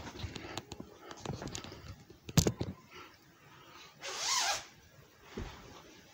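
Handling noise as a phone camera is moved and set down: rustling and light clicks, then a sharp knock about two and a half seconds in. A short scraping rasp follows a little after four seconds, then a soft thump near the end.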